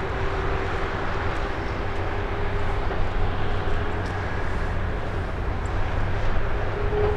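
Airbus A330-300's Rolls-Royce Trent 700 turbofans running at low power as it taxis onto the runway: a steady rumble with a held whine that starts to rise in pitch near the end as the engines begin to spool up.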